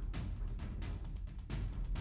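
Background music with a heavy drum beat and deep bass.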